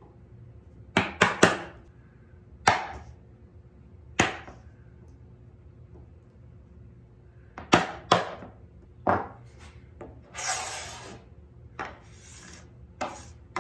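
Wooden mallet striking a chisel set in a knife line across a pine board: sharp single taps, sometimes two or three in quick succession. Near the end come two short scraping sounds as the chisel is pushed along the line by hand.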